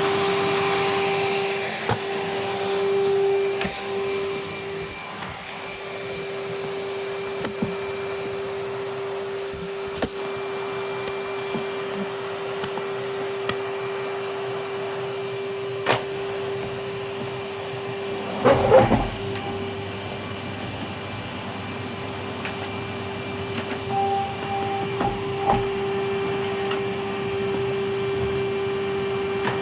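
Vacuum cleaner running with a steady hum, broken by a few sharp knocks and a brief loud clatter about two-thirds of the way through.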